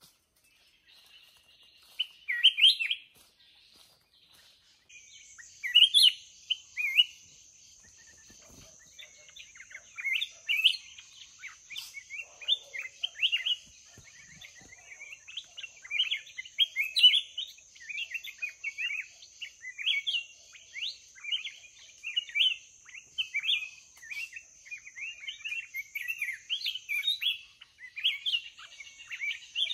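Black-crested bulbul singing in short, quick phrases of chirping notes, sparse at first and almost unbroken in the second half. A steady high hiss runs behind it for most of the time.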